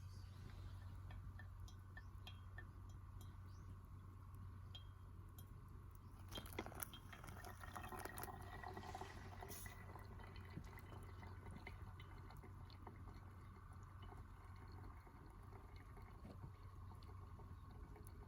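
Liquid poured into a vessel for a few seconds, starting about six seconds in with a few small clinks, the pitch of the filling rising slightly. Otherwise faint, with a steady low hum.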